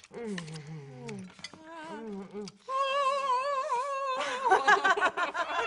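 Women moaning and humming 'mmm' with pleasure while eating: a low wavering moan first, then a higher, held, wavering moan about three seconds in, and louder moaning near the end.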